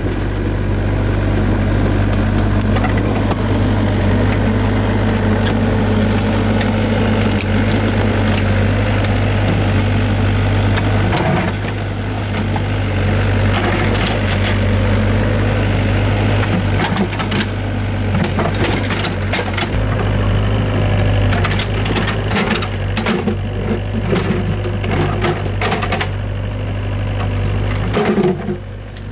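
Excavator's diesel engine running steadily under load, with repeated knocks and clatter from the digging work. A louder clatter comes just before the engine sound drops away at the very end.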